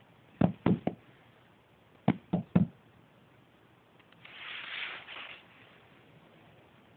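Yorkshire terrier puppy's chew bone knocking, in two quick sets of three sharp knocks about a second and a half apart, then a brief rustling scuffle about four seconds in.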